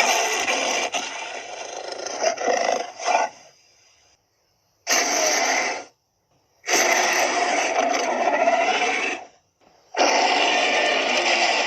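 Tyrannosaurus roar sound effects played one after another: a long roar that fades out, a short one of about a second, a longer one of two to three seconds, and another starting about ten seconds in, each cut off sharply with dead silence between.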